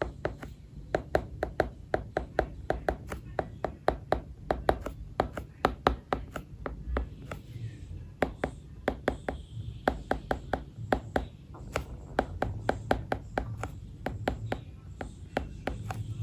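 Stylus tip tapping on an iPad's glass screen during handwriting: a quick, uneven run of sharp clicks, several a second.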